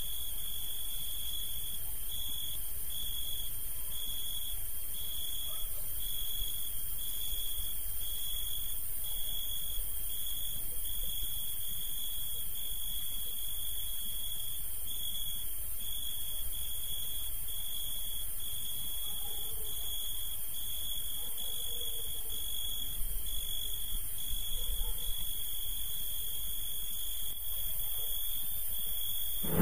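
Insect trilling on one steady high pitch, the trill broken by a brief gap about once every second, over a constant high hiss.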